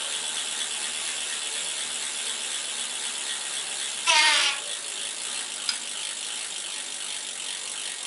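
Bicycle rear-hub freewheel ticking rapidly and steadily as the wheel spins, with one short squeak about four seconds in.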